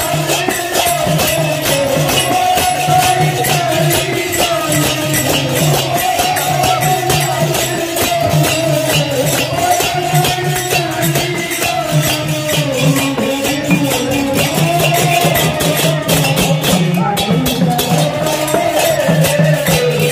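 Devotional kirtan music: small brass hand cymbals clashing in a fast, steady rhythm with a hand drum, under a sung melody.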